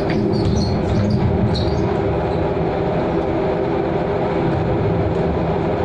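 Steady mechanical drone with several held low tones and no change in level, typical of a motor vessel's engines and machinery running.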